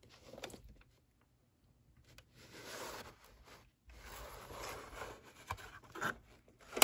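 Hands rubbing and scraping against a plastic VHS clamshell case as it is handled and opened, in two stretches, with a few clicks near the end, the last one sharp and loud.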